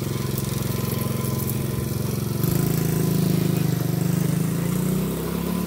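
Small gasoline engine of a youth four-wheeler (ATV) running, its engine note stepping up louder and higher about halfway through, then easing off a little near the end.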